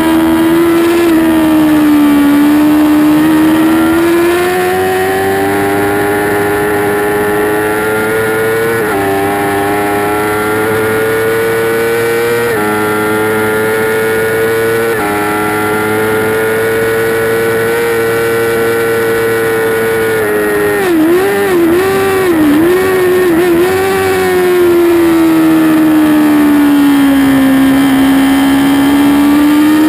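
2008 Yamaha YZF-R6 racing engine (inline-four) at high revs, heard onboard. Its pitch climbs through the gears with short steps at the upshifts in the first half. It wavers several times about two-thirds through as the bike is shifted down and slowed for a corner, sinks, then rises again near the end as the throttle opens in second gear.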